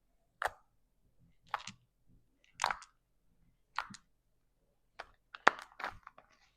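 Crunchy slime with fishbowl beads being squeezed and poked by hand, giving short sharp clicks and pops about once a second, then a quick run of several clicks near the end.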